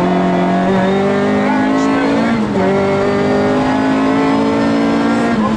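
Rally-prepared Honda Civic engine running hard under load, heard from inside the cabin, its pitch climbing steadily. The pitch dips briefly about two and a half seconds in and again near the end, then climbs once more.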